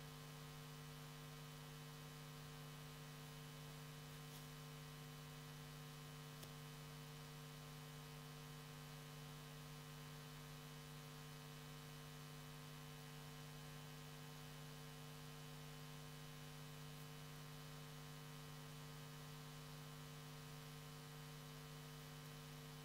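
Near silence with a steady electrical hum made of several low, unchanging tones.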